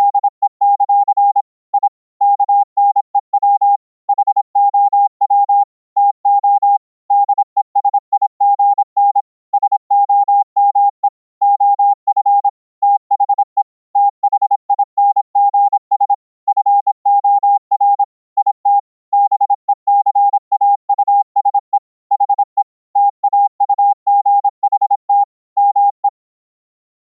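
Morse code (CW) sent fast as a single steady beep note keyed on and off in quick runs of dots and dashes, with short gaps between characters and words. It is the CW received over Mumble and regenerated on the receiving end. The note stops about a second before the end.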